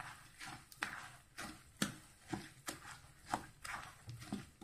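Wooden spatula stirring vermicelli through sticky caramelized sugar syrup in a non-stick pan, scraping and knocking against the pan about twice a second.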